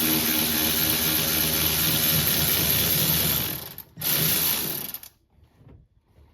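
A power wrench runs steadily for about three and a half seconds, stops, then runs once more for about a second, spinning off a rear shock absorber's upper mounting nut.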